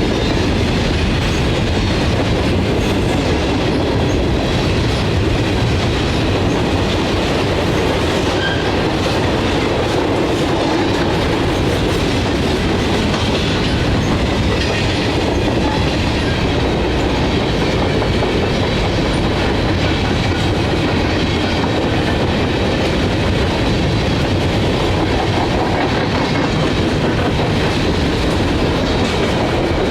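Long freight train rolling steadily past at speed, its wheels clicking over the rail joints without a break.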